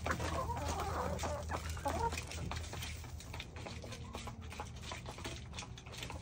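Backyard chicken flock clucking over freshly scattered feed, with many small clicks and scratches. The calls come thickest in the first couple of seconds.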